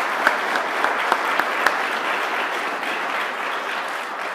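Audience applauding, with a few louder close claps standing out in the first second and a half; the applause slowly eases off toward the end.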